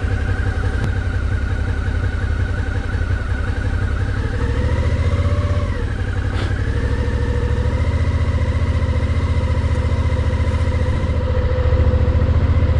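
Adventure motorcycle engine running at low revs as the bike creeps forward, its pitch rising a little a few seconds in and dipping again about six seconds in, with a short click just after.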